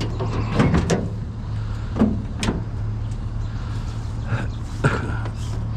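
A vehicle engine running steadily, with a handful of sharp knocks and clunks about half a second in, around two seconds in, and near five seconds.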